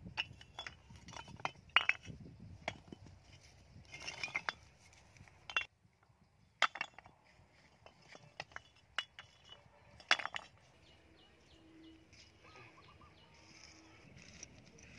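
Fired clay bricks knocking and clinking against one another as they are handled and dropped onto a pile: a run of sharp, ringing clinks.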